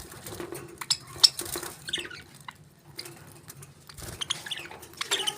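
Pet parakeets chirping in short, high notes, mixed with sharp clicks and scratchy patter. The loudest click comes a little after a second in.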